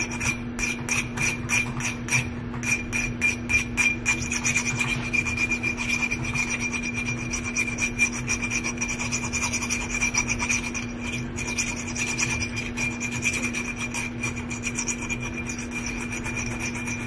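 Metal nail file, wetted, rasping back and forth on the chipped rim of a glass in quick strokes, about three a second, to smooth the sharp edge.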